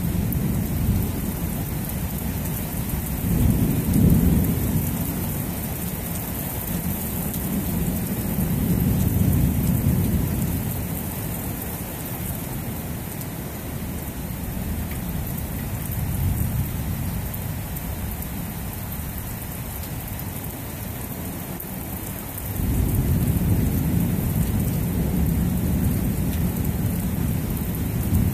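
Thunderstorm: rain hissing steadily, with rolling thunder rumbling low. The thunder swells about four seconds in and again around nine seconds, and a longer rumble sets in about three-quarters of the way through.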